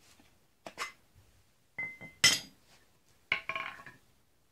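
Steel axe heads being picked up and set down, knocking and clinking against each other and the concrete floor: a handful of sharp metallic knocks, some with a short ring, the loudest a little past two seconds in.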